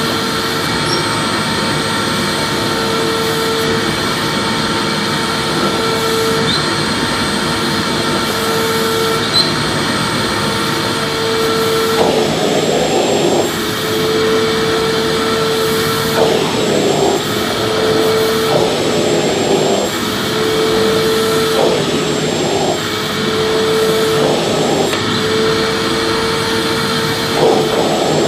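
Vacuum cleaner running continuously: a steady motor whine over a rushing airflow noise. From about halfway through, brief irregular surges of noise break in every second or two.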